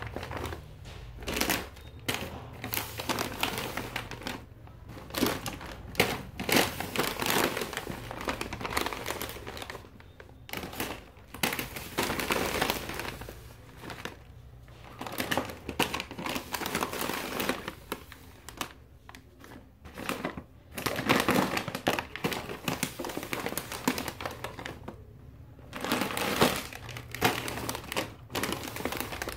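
Plastic snack bags crinkling as a gloved hand presses and moves them, in irregular bursts with short pauses between.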